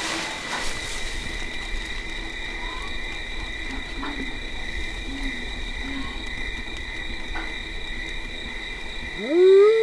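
Night-time woods ambience: an owl hooting softly several times over a steady high-pitched hum. Near the end a loud, dog-like howl begins, rising and then falling in pitch.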